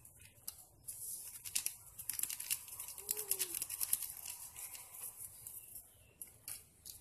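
Eggs being cracked and their shells broken open over a plastic mixing bowl: a run of light clicks and crackles.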